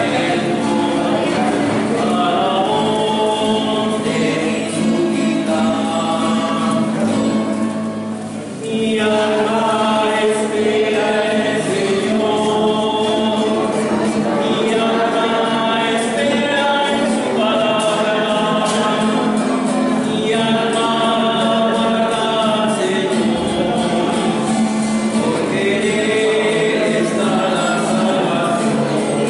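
Hymn sung by a group of voices with an acoustic guitar accompanying, with a short break between phrases about eight seconds in.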